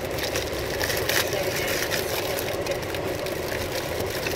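Steady noise of a running car heard inside its cabin, with short crinkles of a clear plastic wrapper being handled close by.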